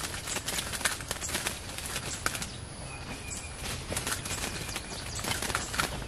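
Dense, irregular rustling and crackling of leaves and brush, with a faint thin note about three seconds in.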